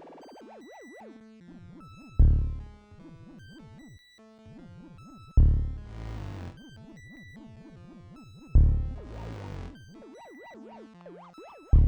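Improvised electronic jam on Korg Volca and Monotribe analogue synthesizers: a heavy, decaying low boom hits about every three seconds, while a synth line warbles rapidly up and down in pitch between them, over short high electronic beeps.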